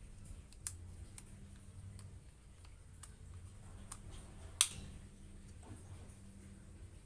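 Scattered light clicks and taps of an action camera in its case being handled and fitted onto a scope camera mount, with one sharper click about four and a half seconds in.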